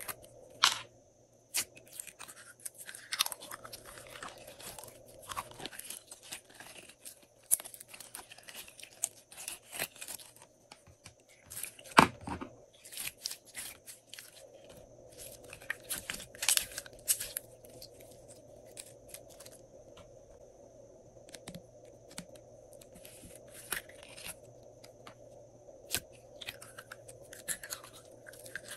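Hands squeezing a soft plastic bottle filled with clear glitter slime: irregular crinkling of the plastic and sticky crackling and popping of the slime as it is pressed out of the bottle's neck, with one sharper crack near the middle.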